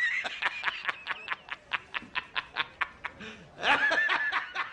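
High-pitched snickering laugh: a long squeal, then a rapid run of short breathy pulses about six a second, and another squeal about three and a half seconds in before the pulses resume.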